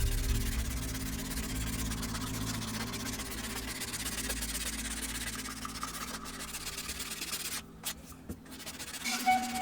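Wood being hand-sanded: a steady scratchy rubbing that stops briefly near the end.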